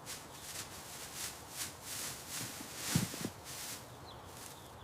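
A horse's hooves stepping softly, a run of scuffing footfalls about three a second with a heavier thud about three seconds in. Small birds chirp faintly near the end.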